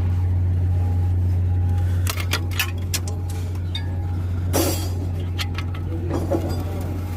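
Metal hand tools clinking against metal, with scattered sharp clinks from about two seconds in, over a steady low drone that drops slightly when the clinking starts.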